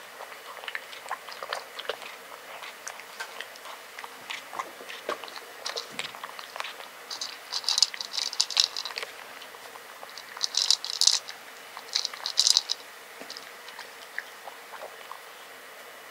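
A brown tabby-and-white cat crunching and chewing dry kibble, a run of crisp crunches with louder bursts several times around the middle.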